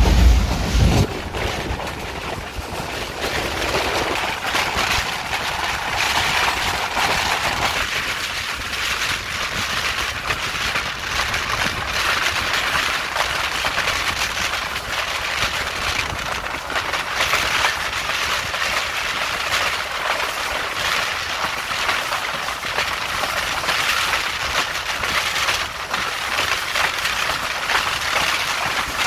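Steady rush of wind and running noise from a moving passenger train, heard at an open carriage window, with a loud low rumble in the first second.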